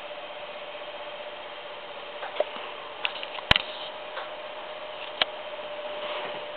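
A few sharp clicks and taps over a steady faint hum, the loudest click about halfway through.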